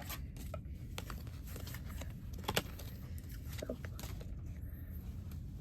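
A few light clicks and rustles of Pokémon trading cards being handled, the sharpest about two and a half seconds in, over a steady low hum.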